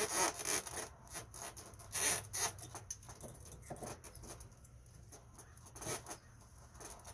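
Pliers clicking and scraping on a metal cotter pin at a plastic outboard propeller's hub as the pin's legs are bent over to keep the propeller on. The sharpest clicks come at the start, about two seconds in, and again about a second before the end.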